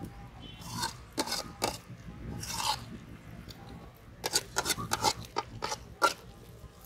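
Steel ladle stirring thick goat lung and liver gravy in an aluminium pot: irregular scrapes, knocks against the pot and wet squelches of the meat. A denser run of knocks comes from about four to six seconds in, the sharpest one near the end of that run.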